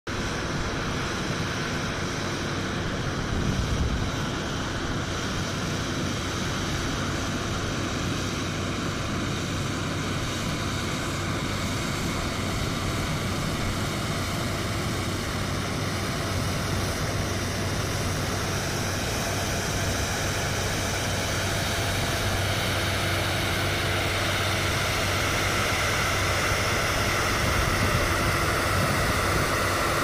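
Combine harvester working in a stubble field, a steady mechanical drone of engine and threshing machinery that grows slowly louder as the machine draws closer. A short low rumble rises briefly about four seconds in.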